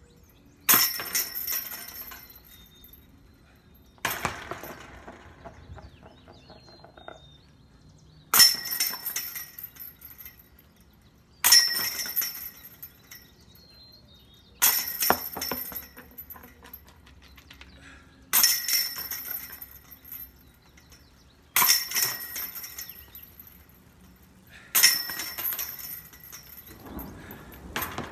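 Flying discs striking the hanging chains and metal frame of a disc golf basket, eight sharp jangling hits about every three to four seconds, each ringing out briefly.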